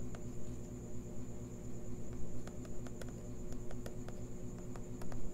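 Faint, irregular light ticks of a stylus tapping and writing on a tablet screen, over a steady low electrical hum and a thin high whine.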